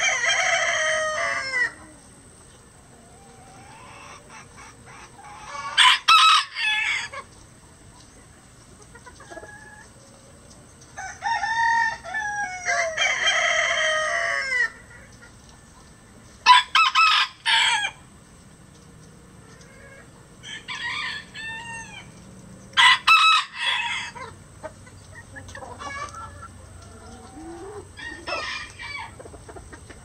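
Several roosters crowing one after another, about eight crows in all, each lasting a second or two. Some crows are loud and close, and a few near the end are fainter.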